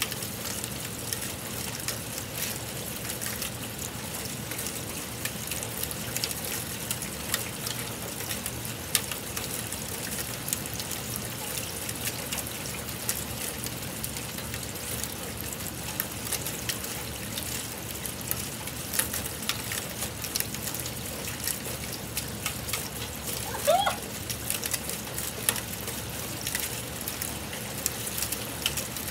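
Steady rain falling, an even hiss dotted with many sharp ticks of drops striking. About four-fifths of the way through, a single short rising squeak.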